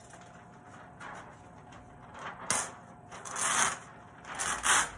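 A large sheet of flip-chart paper being lifted and turned over, crackling and rustling: a sharp crackle about halfway in, then two louder rustles toward the end.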